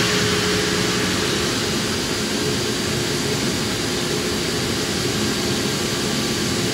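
CFM LEAP-1A turbofan on an Airbus A321neo running steadily at the end of its start-up: an even rush of air with a held whine that stays at one pitch.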